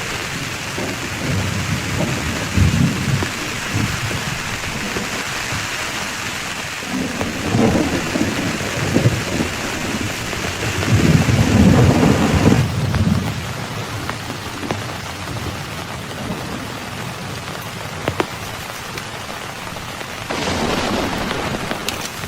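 Heavy rain pouring steadily, with several low rolls of thunder rumbling in the first half. The rain's hiss thins about halfway through.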